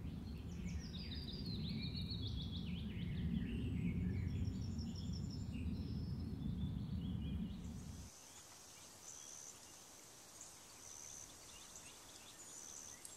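Outdoor background of songbirds chirping over a low steady rumble. About eight seconds in the rumble cuts off abruptly, leaving fainter, short high chirps repeating every second or so.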